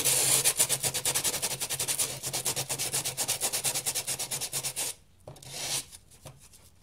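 Sandpaper rubbed by hand over a gesso-primed cardboard box in quick, light back-and-forth strokes, smoothing small defects in the dried primer. The rubbing stops about five seconds in, followed by a couple of fainter strokes.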